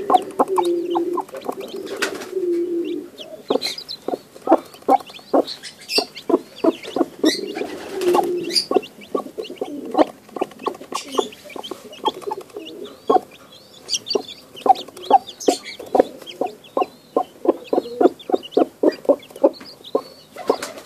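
A brooding rooster clucking in short, rapid, repeated clucks, with a few longer low drawn-out calls near the start and again about eight seconds in. Newly hatched chicks peep in thin, high chirps throughout.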